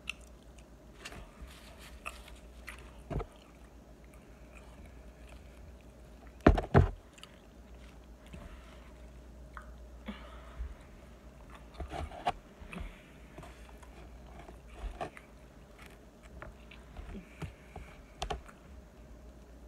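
A person eating close to the microphone: chewing and mouth sounds, with scattered short clicks of a spoon and fingers on a takeout container. Two loud knocks close together about six and a half seconds in.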